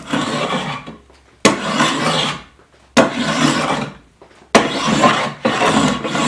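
A hand tool worked across wood in repeated strokes. There are about four strokes, each starting sharply and running about a second, with short pauses between them.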